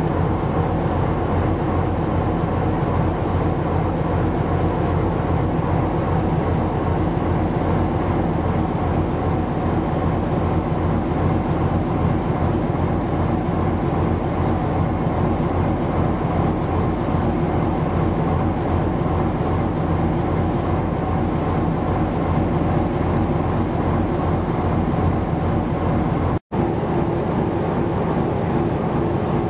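Ship's engine and machinery droning steadily, a dense low hum with several steady tones. It cuts out for an instant near the end, and a new steady hum comes back in.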